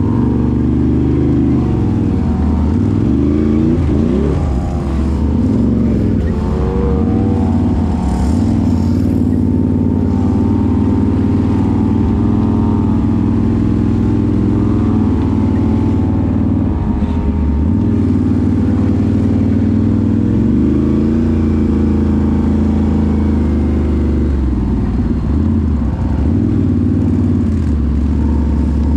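Can-Am 1000cc off-road vehicle engine running under load, its revs rising and falling again and again with the throttle.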